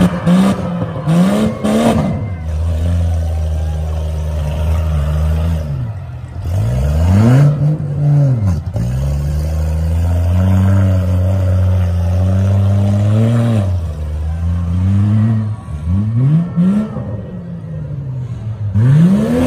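Demolition derby mini trucks' engines revving hard and dropping back, again and again, as the trucks ram and spin their wheels. Knocks of crashing metal come in the first two seconds.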